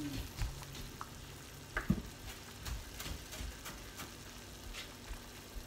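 Kitchen knife chopping cilantro on a wooden cutting board: scattered, irregular knocks of the blade against the board over a faint background hiss.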